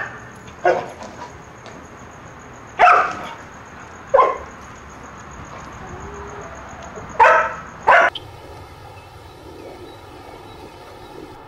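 A large dog barking in short, sharp single barks, about five in eight seconds, while it chases a chicken. Then only a faint steady hum.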